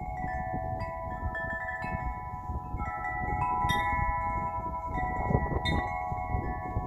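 Wind chimes ringing, many bell-like tones overlapping and struck again and again as they sway, with wind rumbling on the microphone.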